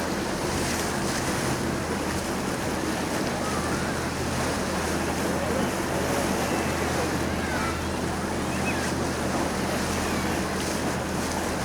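Tour boat's engine running with a steady low drone under the rush of water along the hull and wind buffeting the microphone.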